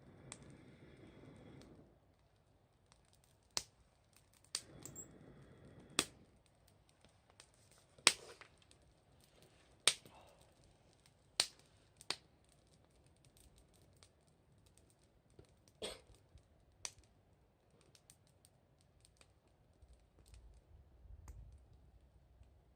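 Wood fire crackling, with sharp irregular pops from the burning firewood, a dozen or so spread apart, and two short rustling hisses in the first few seconds.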